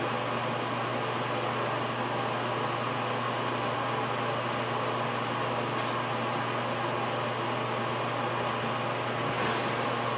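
A machine running steadily with a constant low hum and a whirring hiss above it, unchanging throughout.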